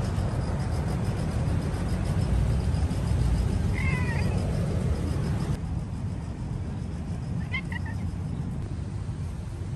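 A kitten meowing twice, two short high calls about three and a half seconds apart, over a steady low rumble.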